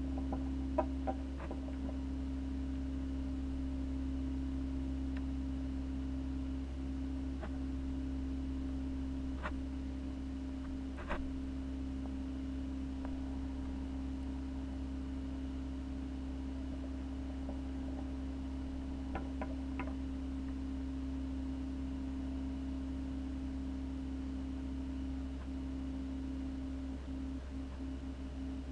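Steady hum of a reef aquarium's running pumps, with a few faint scattered clicks.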